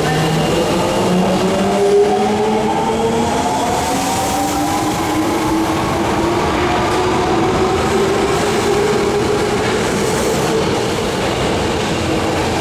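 Electric train accelerating: its motor whine is a stack of tones rising slowly and steadily in pitch over rumbling wheel and track noise.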